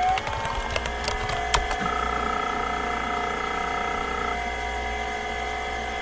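Whine of small electric motors that rises in pitch as they spin up, then runs steadily on several tones, with a few sharp clicks.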